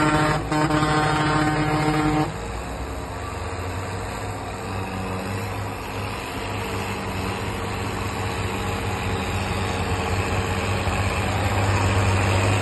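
A loud, steady horn blast that cuts off sharply about two seconds in, over a John Deere 6610 tractor's six-cylinder diesel engine. The engine then runs on steadily and grows louder near the end.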